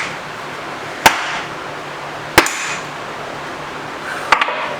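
Three heavy sledgehammer blows, a second or two apart, driving the rust-seized tailstock of a Monarch 10EE lathe along its bed; each blow is a sharp crack with a short ring, and the last one lands as a quick double hit.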